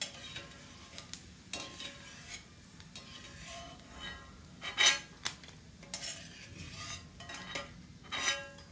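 A metal spoon scraping and clinking against a kadhai in short separate strokes as fried gond is scooped out of hot ghee, over a faint sizzle of the ghee.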